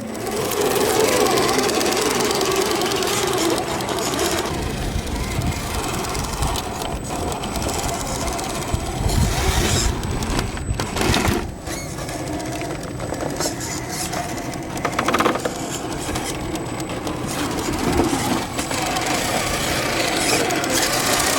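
1/10-scale SCX10 III RC crawler's electric motor and drivetrain running with a clicking noise, a known complaint on this kit that the owner traces to assembly.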